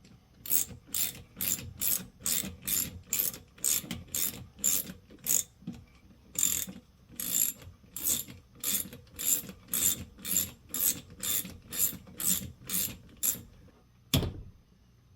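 Hand ratchet wrench clicking in steady back-and-forth strokes, about two a second, backing out a fastener to open the starter motor. There is a short pause midway, and a single sharp knock near the end.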